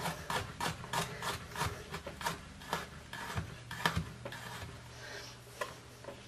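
Chef's knife slicing a garlic clove thin on a cutting board: a run of short taps of the blade on the board, about three a second, thinning out after about four seconds.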